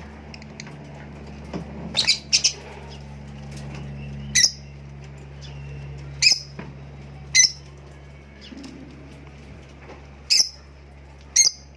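Cockatiels giving short, sharp chirping calls, about eight of them scattered through, some in quick pairs, over a steady low hum.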